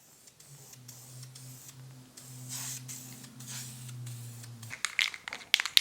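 A spray nozzle hissing in several short bursts over a steady low hum. Near the end the hum stops and sharp clicks and crinkling start.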